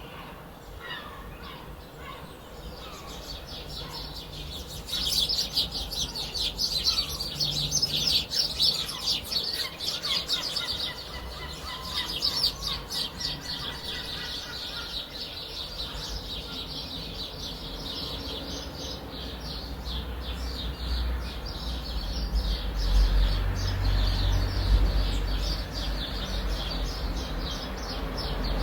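Many small birds chirping rapidly in a dense, busy chorus, with a few separate falling calls at the start and a low rumble building in the second half.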